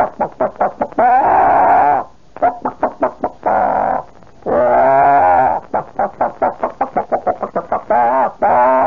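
A man's vocal imitation of a hen's cackle as she is about to lay an egg: runs of quick, short clucks broken by several long, drawn-out squawks.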